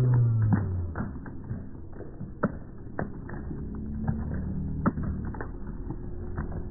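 A held band chord dies away in the first second. Then come scattered sharp clicks and knocks from flag poles being handled and set down on pavement.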